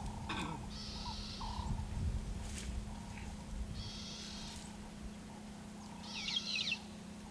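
Birds calling in the background: a few short, high buzzy trills and a cluster of quick falling chirps near the end, over a steady low hum.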